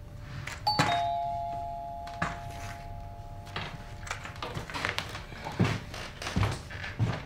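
Two-note doorbell chime: a higher note, then a lower one that rings out and fades over about three and a half seconds. Scattered knocks and thumps follow near the end.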